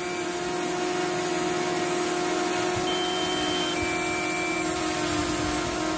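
Propellers of a small DJI Mini-series quadcopter drone whining at a steady pitch with a hiss of rushing air as it lifts off the sand and hovers low.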